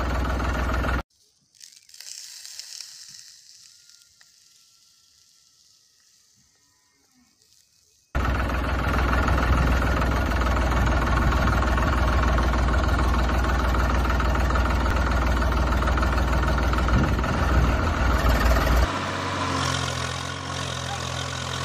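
Engine sound, loud and steady with a deep rumble. It cuts out abruptly about a second in, leaving near silence for about seven seconds, then returns just as abruptly and settles into a steadier, lower hum near the end.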